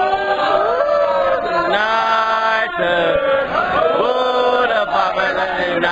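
A group of football supporters chanting a sung terrace chant in unison, with long held notes.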